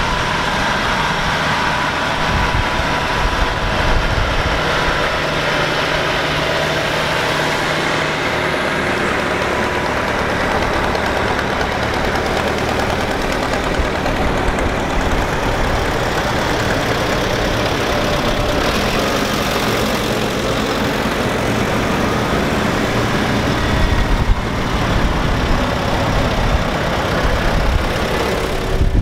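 Engines of vintage Allis-Chalmers farm tractors running at low speed as they drive past one after another, growing louder and lower in the last few seconds as one passes close.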